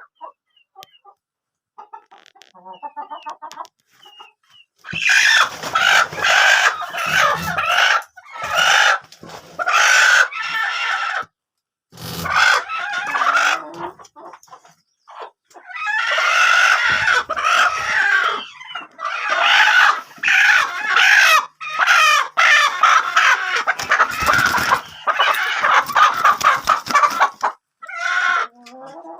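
Chickens clucking, then loud, almost continuous squawking and cackling calls from about five seconds in.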